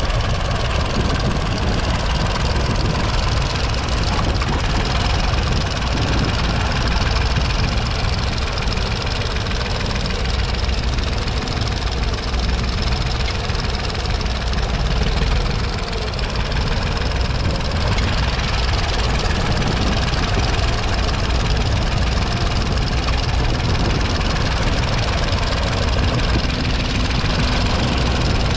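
The 2.6-litre three-cylinder diesel engine of a 1959 Nuffield Universal 3 tractor runs steadily under load while pulling a two-furrow trailed plough.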